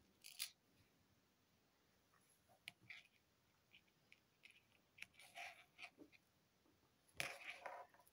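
Near silence, with faint scattered rustles and small clicks of fingers handling and pressing a small piece of modelling clay. A slightly louder brief rustle comes about seven seconds in.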